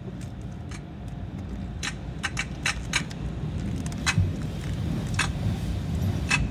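Low steady rumble heard inside a car's cabin, with scattered sharp clicks and ticks.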